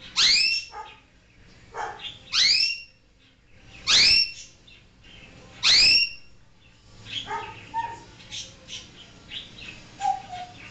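African grey parrot giving four loud rising calls about two seconds apart, then a run of softer short chirps and clicks.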